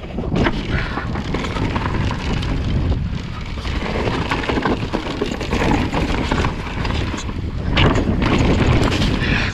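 Wind rushing over a camera microphone along with the clatter and knocking of a bike and its tyres on a rough dirt trail as it is ridden downhill. The noise grows loudest about eight seconds in.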